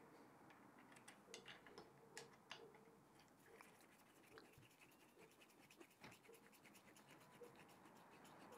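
A screwdriver turning a small screw into the cross-slide end bracket of a Lorch Model A lathe: faint scratching and light clicks over near silence.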